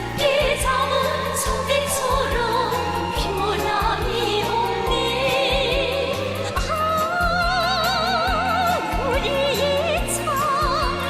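North Korean pop song: a singer with wide vibrato carries the melody over a stepping bass line and a steady drum beat.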